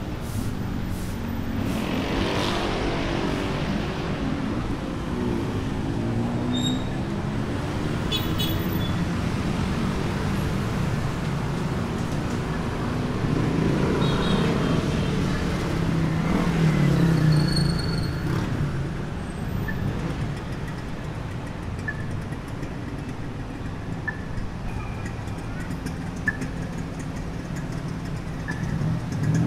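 Street traffic: vehicle engines running and passing close, over a steady low rumble, loudest around the middle.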